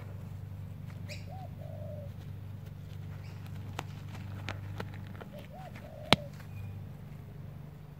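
A dove cooing twice, each phrase under a second long and about four seconds apart, over a steady low hum. A few sharp clicks come through, the loudest about six seconds in.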